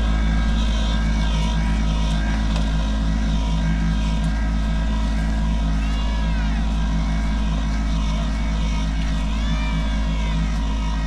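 Kubota compact tractor's diesel engine running steadily under load as it pulls a potato plow through the row.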